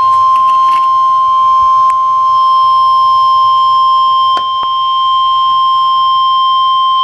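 NOAA Weather Radio's 1050 Hz warning alarm tone, one long unbroken beep through a handheld scanner's small speaker. It signals that a warning broadcast, here a tornado warning, is about to follow. Two brief clicks come about four and a half seconds in.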